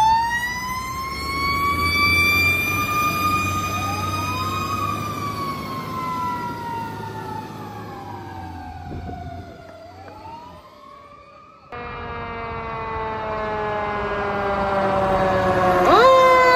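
Fire truck sirens wailing. A siren winds up quickly, holds high, then slowly slides down in pitch while a second siren tone rises and falls across it and fades with distance. After a sudden cut, another fire engine's siren sounds louder, falling in pitch, then sweeps sharply up near the end.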